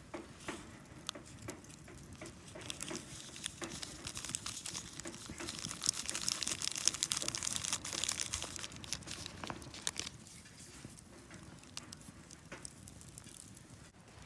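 Foil ramen seasoning packet crinkling as it is torn open and shaken out over the noodles, a crackly rustle of small clicks that grows loudest midway and then dies down.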